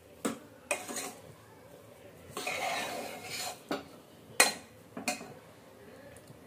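Steel spoon stirring grated carrot and sugar in an open pressure cooker: a few sharp clinks of spoon on pot near the start, a scraping stretch a little past the middle, and the loudest clink about four seconds in, followed by one more.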